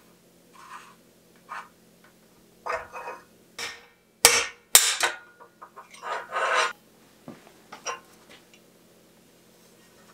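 Metal clicks, knocks and clanks of a bicycle headset being taken apart as the fork's steerer tube is drawn out of the head tube. The two loudest clanks come about halfway through, half a second apart, followed by a short rattle of loose headset parts.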